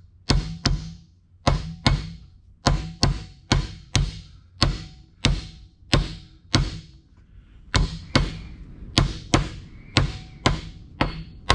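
Steel hammer blows driving roller bearings into their housings on a pumping-unit wrist-pin assembly. The blows are sharp and land about two a second, each ringing briefly like struck metal.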